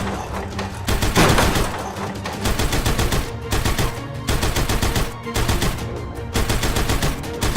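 Rapid, dense clattering, many clicks a second, over background music.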